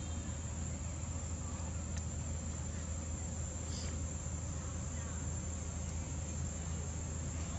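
Steady high-pitched insect drone with a low steady hum beneath it. A single brief high chirp about four seconds in.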